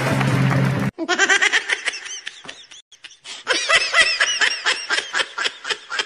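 Laughter in quick repeated bursts, cutting in abruptly just under a second in as music stops, with a short lull near the middle.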